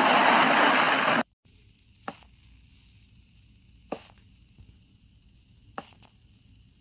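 A loud, even rushing noise that cuts off abruptly about a second in. It is followed by three sharp knocks about two seconds apart over a faint low hum.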